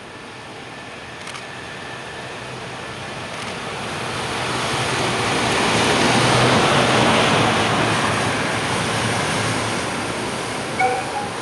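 Electric freight locomotive passing close at speed: the wheels on the rails build to a peak about six seconds in, then fade as it goes by. A brief high-pitched sound comes near the end.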